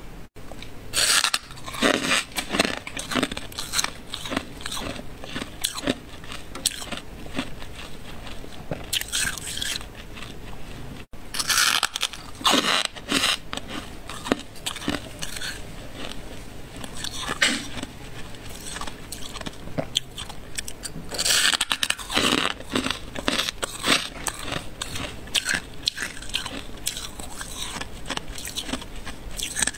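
Built-up freezer frost being squeezed and crushed by hand, squeaky crunches coming in irregular runs, some of them louder.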